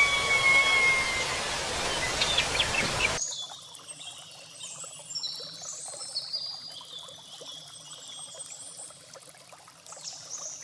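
A loud steady hiss with long, slowly falling whistle-like tones cuts off abruptly about three seconds in. It gives way to small birds chirping repeatedly in short, high notes over a faint trickle of water.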